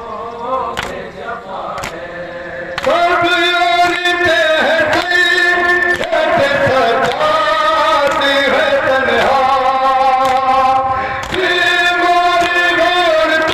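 Men's voices chanting a noha, a Shia lament, in unison into a microphone with long held melodic lines. The voices are softer for the first three seconds or so, then come in loud and carry on steadily.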